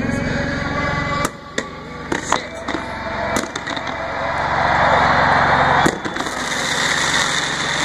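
Fireworks going off with a series of sharp bangs, several in the first few seconds and one more near the end, over a large stadium crowd cheering, the cheer swelling loudest around the middle.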